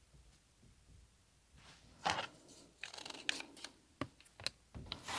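Quilting fabric being unfolded and shifted on the cutting table, with rustling and scraping and a few light knocks, starting about two seconds in.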